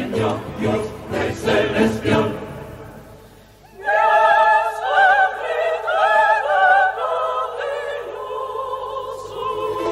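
Background choral music: voices singing that fade out about three seconds in, then a new sung choral passage begins about a second later.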